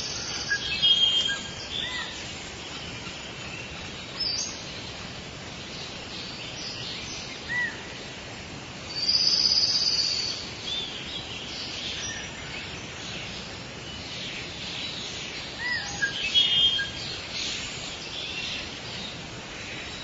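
Tropical rainforest ambience: a steady hiss of background noise under scattered bird calls, short high chirps and whistles. A longer, louder high call comes about halfway through, and a quick run of chirps follows near the end.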